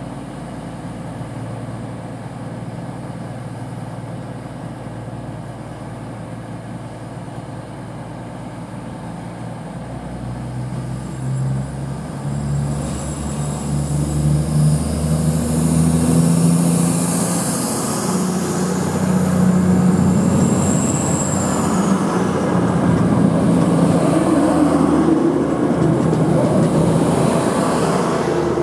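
East Midlands Trains Class 222 Meridian diesel-electric unit pulling away from the platform. Its underfloor diesel engines rev up and rise in pitch, and the sound grows steadily louder as the cars move past. A brief high whine falls in pitch about three-quarters of the way through.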